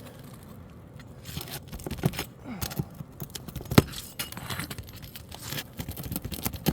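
Metal roofing hand tools scraping and clicking against asphalt shingles and nails while shingles are lifted and nails worked loose, with one sharp metallic click a little under four seconds in.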